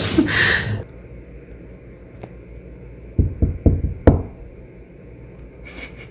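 A loud noisy sound cuts off suddenly under a second in, followed by a few dull knocks about three to four seconds in.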